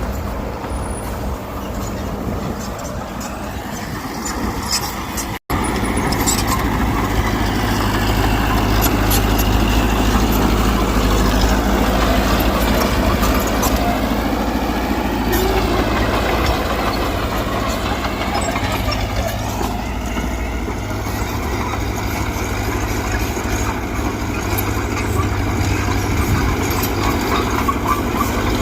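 Diesel engine of heavy earthmoving machinery running steadily under work, with scattered light clanks. The sound cuts out for an instant about five seconds in and comes back louder.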